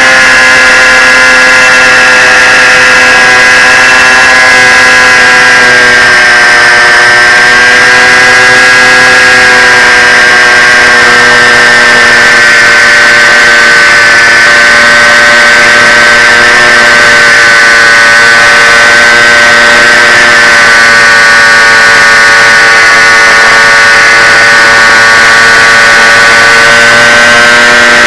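Sunnysky brushless motor and propeller of a fixed-wing FPV plane running steadily in flight, picked up by the onboard camera: a loud, steady high-pitched whine over a hiss, easing slightly lower in pitch over the first ten seconds.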